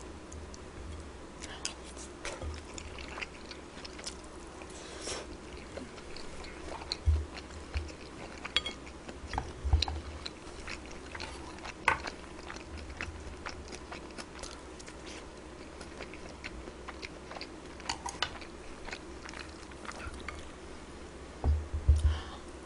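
A person chewing and eating food close to the microphone, with scattered small clicks and a few soft low knocks.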